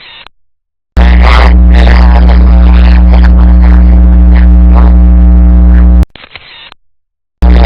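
Loud, distorted electrical hum and buzz from a photo booth's faulty audio recording, clipped at full level. It drops out to silence just after the start, comes back about a second in, and cuts out again briefly near the end.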